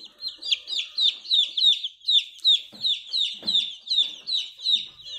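Young chicken chicks peeping loudly and without a break: short, high peeps, each falling in pitch, about four a second.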